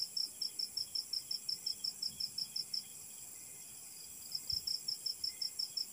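An insect chirping in a rapid, even pulse, about six or seven high chirps a second. It pauses for about a second and a half near the middle, then starts again.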